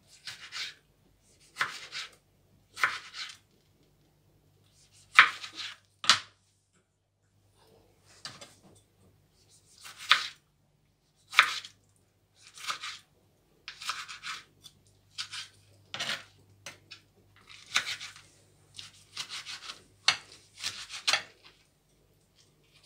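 Chef's knife cutting tomatoes on a plastic cutting board: about fifteen short slicing strokes at irregular spacing, each a quick scrape of the blade through the tomato onto the board. A faint low hum runs underneath.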